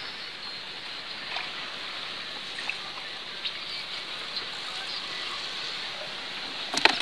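Steady hiss of trickling water with a few faint drips. A quick cluster of sharp clicks comes right at the end.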